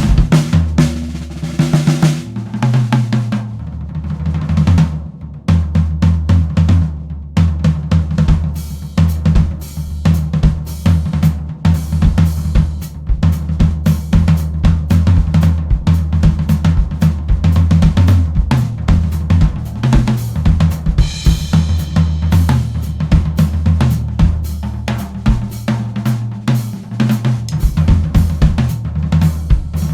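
A 1970s Pinguim drum kit (22-inch bass drum, 13-inch rack tom, 16-inch floor tom, tuned, with double-ply clear batter heads) played in a continuous groove with fills: bass drum, toms, snare and hi-hat/cymbals. A cymbal rings out a little past two-thirds of the way through.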